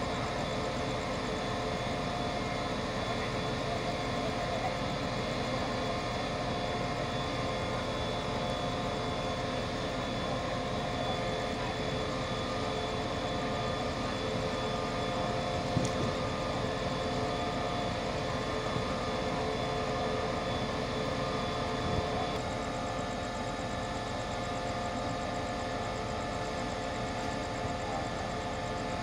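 SRT QSY-built diesel-electric locomotive idling while standing at the platform: a steady engine drone with several high whines over it. One high whine stops about three-quarters of the way through.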